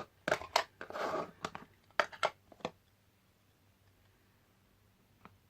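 A quick run of light taps and clicks with a brief papery rustle from hands working craft supplies on a desk, about a dozen sharp knocks in the first two and a half seconds, then quiet room tone.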